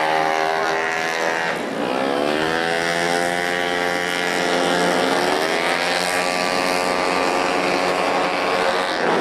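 Several stock 115cc automatic racing scooters running hard together. Their engine pitch drops as they slow for a corner about a second and a half in, then climbs as they accelerate out, with another dip and rise around the middle.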